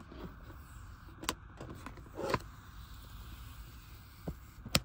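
Cardboard camera box being handled and opened: a few sharp clicks and a brief rustle as the flap and inner wrapping are pulled, over a low steady rumble inside the car.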